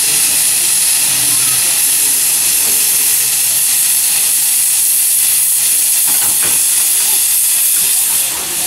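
Loud, steady hiss of steam blowing from the open cylinder drain cocks of a narrow-gauge steam locomotive as it starts to move off.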